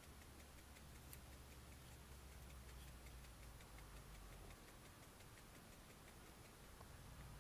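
Near silence: a trail camera's faint steady hum and hiss, with a light, even ticking several times a second.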